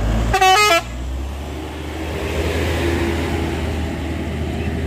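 A short vehicle horn blast, about half a second long, about half a second in, over the steady low rumble of a Mitsubishi Fuso light truck's diesel engine working hard on a steep climb.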